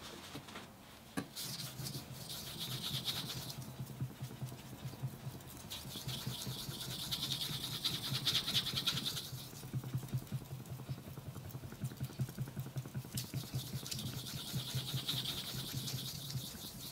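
Sugimoto Japanese kitchen knife blade stroked rapidly back and forth on a wet waterstone, a gritty scraping scrub in three bouts of a few seconds each, with short pauses between them.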